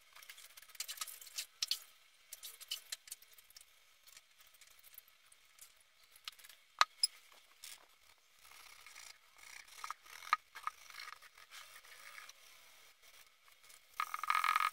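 Irregular scratchy rubbing strokes of a small pad worked by hand over an embossed copper panel, with one sharp click about seven seconds in and a louder stretch of scrubbing near the end.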